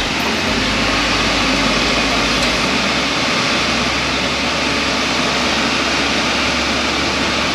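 Steady, even rush of air from a running fan, with no clear pitch and no change in level.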